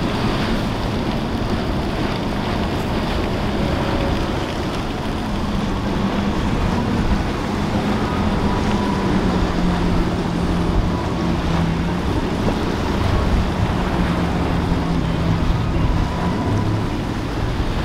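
Motorboat engines droning steadily as boats power through choppy inlet water, mixed with breaking waves and the rush of wind on the microphone.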